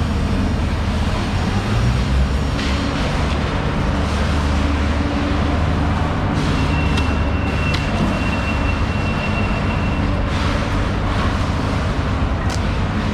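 An engine running steadily, a constant low hum under a noisy wash, with a thin high whine that comes in about six seconds in and stops about four seconds later.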